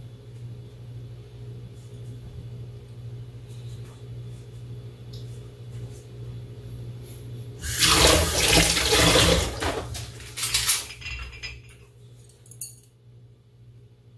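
Water from a tap gushes loudly into a sink for about two seconds, then runs again briefly, and a sharp click comes near the end. A steady low hum sits underneath throughout.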